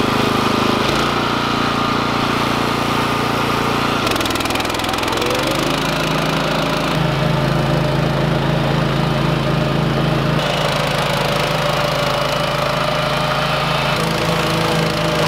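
Two-wheel walk-behind tractor's small gasoline engine running steadily under load as it works a garden bed. Its pitch rises about five seconds in and shifts again around ten seconds.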